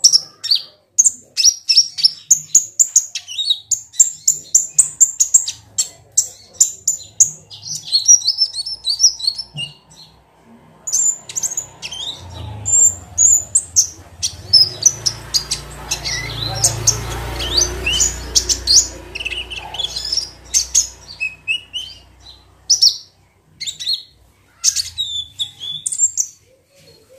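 Caged kolibri ninja sunbird (konin) calling in rapid, high-pitched chirps and twittering trills. A low rumble joins in from about twelve to twenty seconds in.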